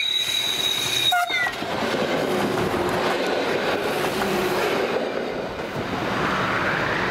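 ALn 663 diesel railcar sounding a horn tone that cuts off about a second in, then running past close by with loud engine and wheel-on-rail noise.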